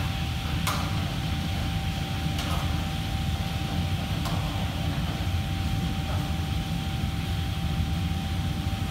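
Steady low mechanical hum of a commercial kitchen's fans and machinery, with a thin steady whine over it. A few light clicks come in the first half.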